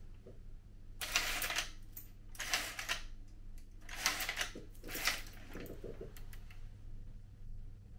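A fabric roman shade being raised by its pull cord in about five tugs, each a short rasp of the cord running up through the shade and the fabric rustling as it folds.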